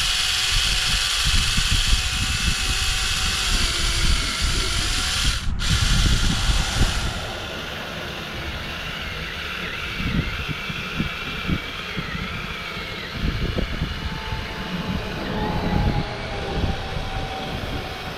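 Small electric chainsaw running and cutting into a soft, partly rotten pumpkin. It stops for a moment about five seconds in, then runs on more quietly, its pitch wavering as it works through the flesh.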